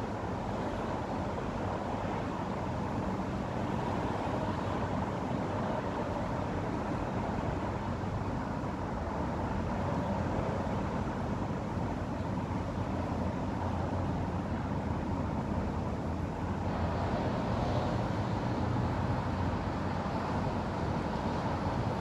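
Steady hum of distant road traffic, an even rumble and hiss without distinct events.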